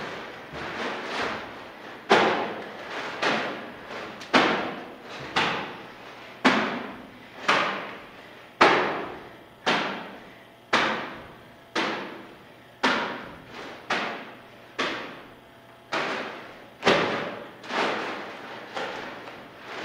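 Heavy trash bags packed with wet clay slamming onto a hard floor, a thud about once a second, each one echoing in a bare room.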